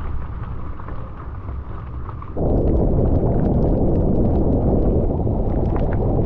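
Wind buffeting an action camera's microphone while riding a bicycle: a steady low rumble that jumps louder about two and a half seconds in.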